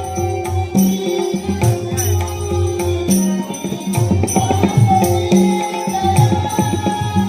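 Traditional Dashavatar folk-theatre music: hand-drum strokes and sharp cymbal-like strikes about twice a second over long, steady sustained tones.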